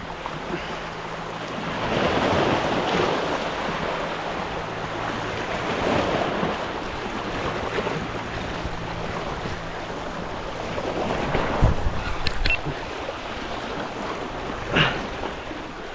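Small waves washing and surging over shoreline rocks, swelling about two seconds and six seconds in, with a few sharp clicks about three quarters of the way through.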